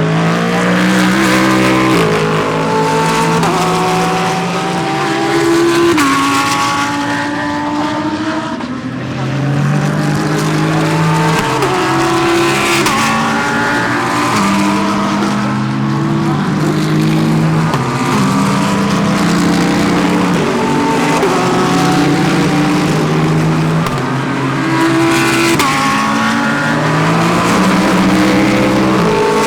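Several GT3 race cars' engines running through a corner at once, their pitch stepping up and down with gear changes, in a continuous overlapping stream.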